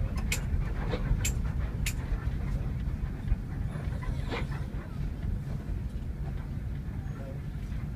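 Steady low rumble of a moving bus heard from inside the passenger cabin: engine and road noise. A few sharp clicks come in the first two seconds.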